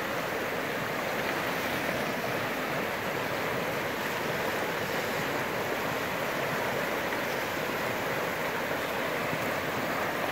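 River water rushing steadily over shallow rocky rapids, an even hiss and rush that doesn't let up.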